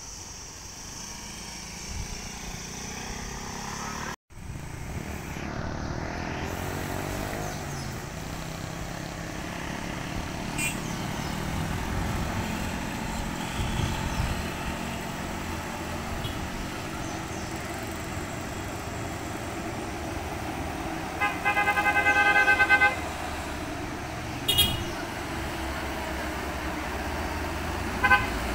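Traffic on a hairpin bend: the engines of passing motorcycles and small trucks run steadily. A vehicle horn sounds for about a second and a half two-thirds of the way through, followed by two short toots. The sound breaks off for an instant about four seconds in.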